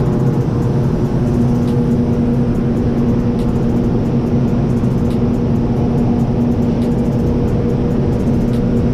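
Powder-coating line machinery running: a loud, steady mechanical drone with a constant hum.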